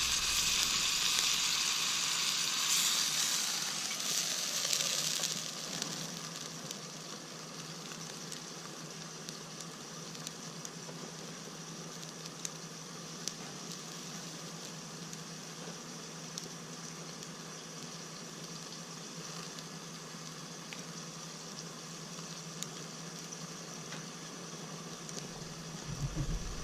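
Food sizzling in hot oil in a pan over a campfire. It is loud for the first five or six seconds, then settles to a quieter, steady sizzle with scattered small crackles.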